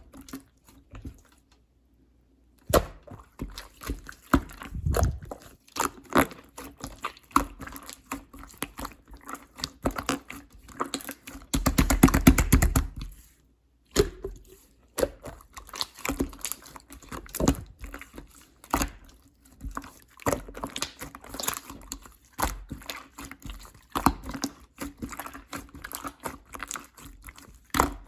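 Clear slime being squished and pressed by hand, making irregular sticky clicks and wet pops, with a dense crackling run about twelve seconds in.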